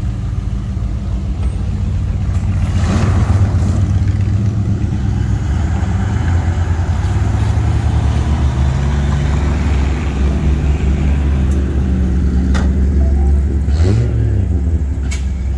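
A classic car's engine idling close by with a loud, low exhaust rumble, its pitch rising and falling slightly a few times as it is blipped. A few sharp clicks sound near the end.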